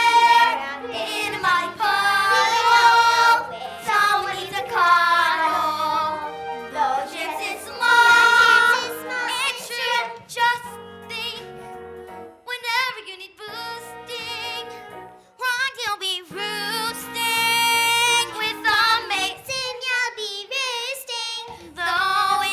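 A young singer's voice performing a musical-theatre song over backing music, in phrases with vibrato on the held notes.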